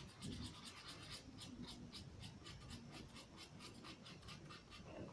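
Faint, quick scratchy strokes of a paint-filled brush rubbed back and forth on paper, several strokes a second.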